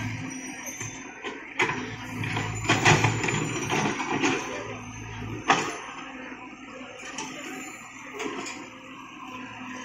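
Caterpillar E120 excavator's diesel engine running under load as the bucket digs through debris, with several sharp clanks and knocks from the bucket and boom, the loudest about five and a half seconds in.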